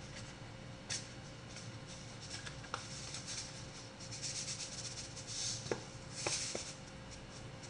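Salt shaken from a canister onto raw chicken pieces: soft, gritty hissing in several bursts, strongest about four to six and a half seconds in. A light tap about a second in.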